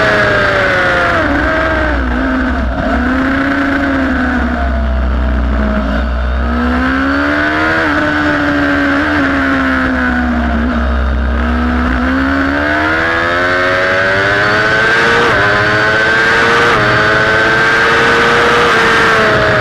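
Sport motorcycle engine at racing speed, heard from on board: it comes down from high revs as the rider brakes and downshifts for a slow corner, then pulls hard through the gears, the pitch climbing and dipping briefly at each upshift over the last several seconds. A steady rush of wind runs underneath.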